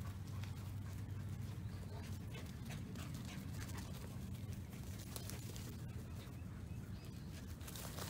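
Dogs, a Great Pyrenees among them, playing on grass: faint dog sounds with scattered light clicks over a steady low hum.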